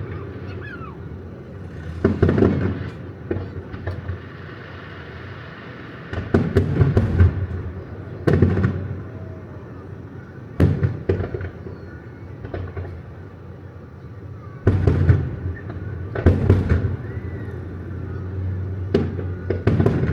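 Fireworks display: aerial shells bursting in groups of sharp booms every few seconds, each fading out before the next volley.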